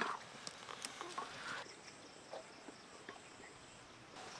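Stone muller worked over a flat grinding stone (shil-nora) to grind a paste: scattered scraping clicks and knocks of stone on stone, busiest in the first second and a half, then sparser. Faint steady high insect chirring sits behind it.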